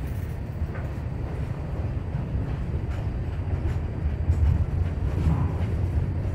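Loaded covered hopper cars of a freight train rolling past close by: a steady low rumble of steel wheels on rail, with a few faint knocks.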